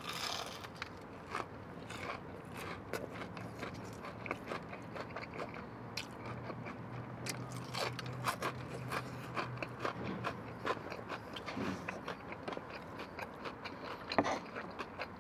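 Close-up eating sounds: a bite into a breaded fried chicken tender, then chewing with many short crunches and wet mouth clicks, a little louder again near the end.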